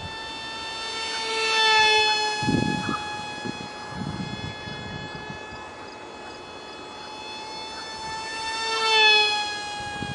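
Ultra micro RC foam jet's 8mm motor and direct-drive propeller whining steadily in flight. It passes close twice, about two seconds in and near the end, growing louder each time, and the pitch drops as it goes by.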